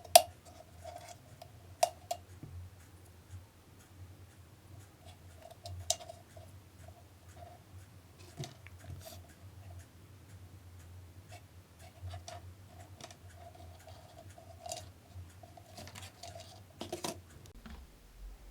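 Scattered sharp clicks and taps of small hard parts being handled, the loudest right at the start and about 2 and 6 seconds in, over a faint low hum that stops near the end.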